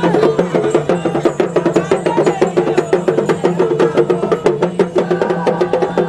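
Traditional West African drumming and percussion playing a fast, dense rhythm of sharp strikes over steady low tones.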